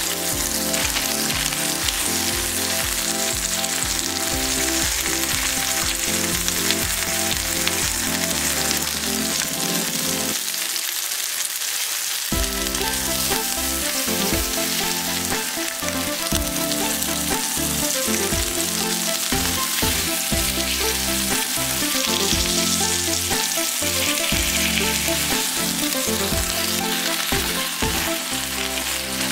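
Flour-dusted salted mackerel fillets sizzling as they pan-fry in olive oil in a nonstick pan, a steady spattering hiss.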